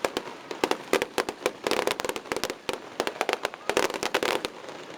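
Fireworks going off in rapid strings of sharp pops and crackles, densest about two seconds in and again near four seconds.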